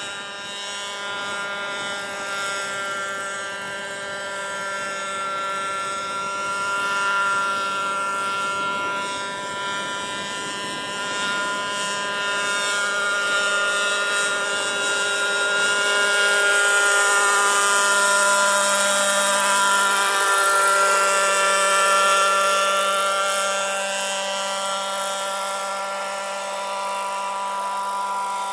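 Combustion engine and rotors of a radio-controlled scale Sikorsky HO3S-1G model helicopter in flight: a steady-pitched engine drone with a high hiss over it. It grows louder through the middle and eases off near the end.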